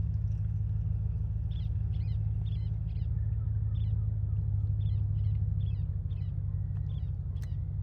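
A bird calling in a series of short, high chirps, about two to three a second, over a steady low rumble.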